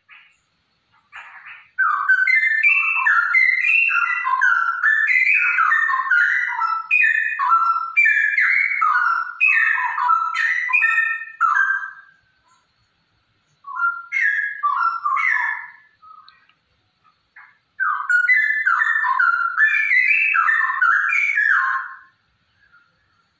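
Female straw-headed bulbul (cucak rowo) singing fast, bubbling whistled phrases in three bouts: a long one starting about two seconds in, a short one in the middle, and another near the end.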